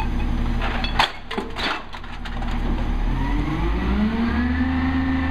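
Peterbilt 320 refuse truck's diesel engine running, with two sharp knocks about a second in. The engine then revs up smoothly and holds at a higher speed, the throttle-up typical of a rear loader running its packer.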